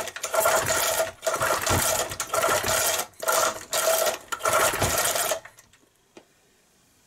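Recoil pull starter on a 1970 Briggs & Stratton 2 hp single-cylinder engine yanked about six times in quick succession, cranking the engine against its compression for a compression test. Each pull carries a steady whine, and the pulls stop about five seconds in.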